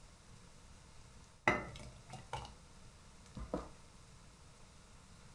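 Metal ladle scooping thick hot jam in an enamel pot: one sharp knock of the ladle against the pot about a second and a half in, then a few softer clicks and scrapes.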